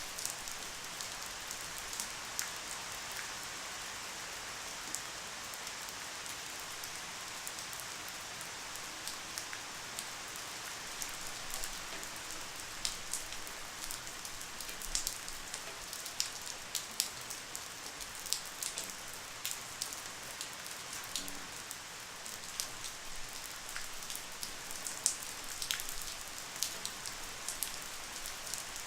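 Light, steady rain: an even hiss with many scattered individual drops ticking sharply on a surface.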